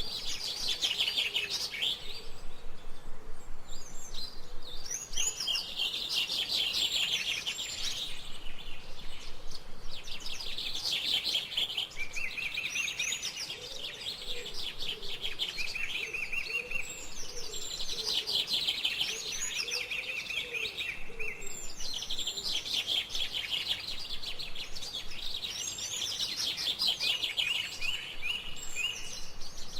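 Small songbirds chirping and singing in quick repeated trills, phrase after phrase with short gaps. A lower series of calls joins in about the middle.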